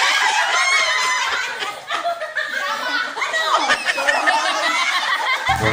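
A woman laughing hard in high-pitched bursts. Music with a steady beat starts just before the end.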